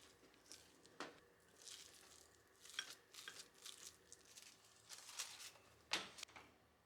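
Quiet kitchen handling sounds: light rustling and crinkling, with two sharp knocks, one about a second in and a louder one near the end.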